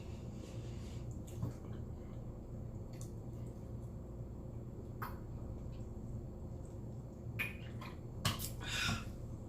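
Close-up eating sounds: scattered mouth clicks and short crunchy chewing noises from a sandwich and potato chips being eaten, a few of them a little louder near the end, over a steady low hum.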